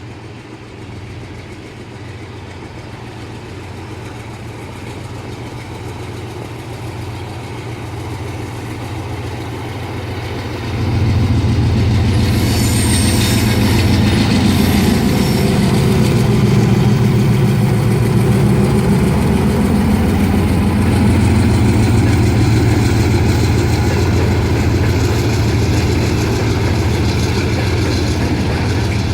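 Diesel engine of a GE C36-7i freight locomotive running under load as the train pulls away, a steady low drone that grows louder and then jumps in level about eleven seconds in. A brief hiss comes just after the jump, and the engine keeps running loud and steady with the rumble of the rolling train.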